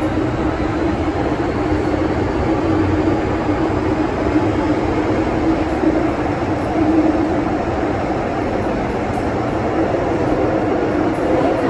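Inside an MTR Island Line M-Train carriage running through the tunnel: a steady, loud rumble of wheels and running gear, with a droning hum held at one pitch.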